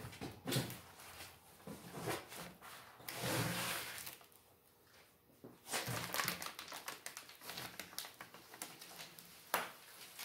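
Plastic bag wrapping on a lathe DRO glass scale crinkling and rustling as it is handled and unpacked, with irregular crackles and a sharp click near the end.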